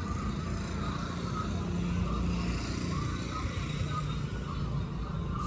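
Steady low rumble of a running motor vehicle, holding even without sudden changes.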